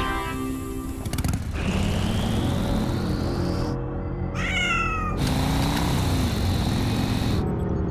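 Cartoon soundtrack: music with a rising electronic whine. About four seconds in, a cartoon cat's voice gives a quick run of about five high falling cries as it cheers.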